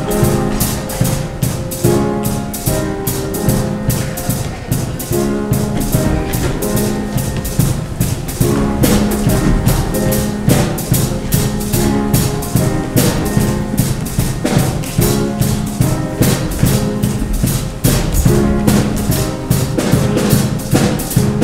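Upbeat instrumental music with a driving drum-kit beat and held low bass notes, accompanying a show choir's dance routine.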